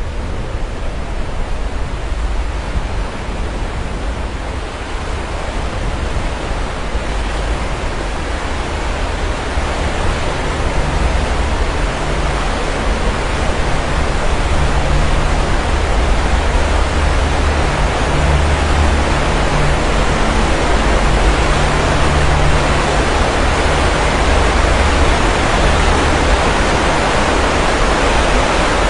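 Sea waves washing onto a shore: a steady rushing hiss of surf with a low rumble underneath, swelling gradually louder over the first half and then holding.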